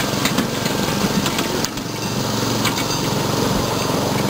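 Miniature ride-on railway train running along its track: a steady mechanical drone, with scattered clicks and clacks from the wheels and cars.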